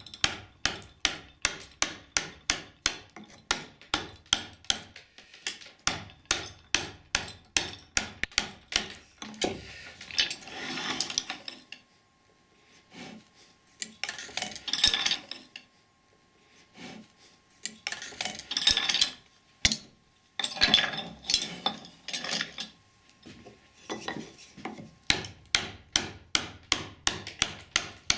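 A wooden mallet drives a wood-carving chisel into a block of wood across the grain, in steady runs of sharp blows about three a second. Between the runs come several stretches of scratchy scraping.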